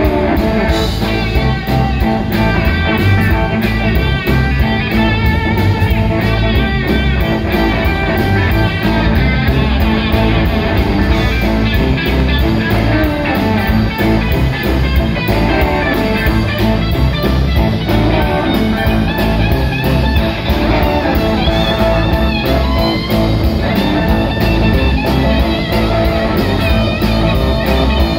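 Live blues-rock band playing loudly: an electric guitar plays lead lines over bass and drums, with cymbals keeping a steady beat.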